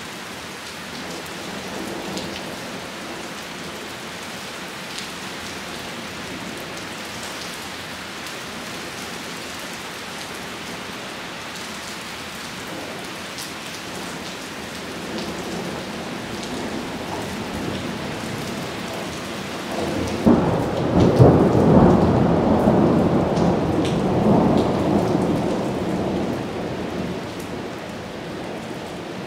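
Steady rain from a severe thunderstorm, with a long roll of thunder that builds about halfway through, is loudest about two-thirds of the way in, and dies away before the end.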